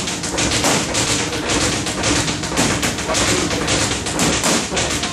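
Boxing gloves striking focus mitts in fast combinations: a rapid run of sharp slaps, several a second.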